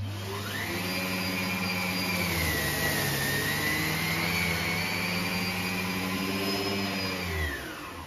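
Numatic Henry Xtra HVX200-22 tub vacuum cleaner switched on, its motor whine rising as it spins up. It runs steadily while the air-driven Aero brush head sucks porridge oats off carpet in one pass. About seven seconds in it is switched off and the whine falls as the motor winds down.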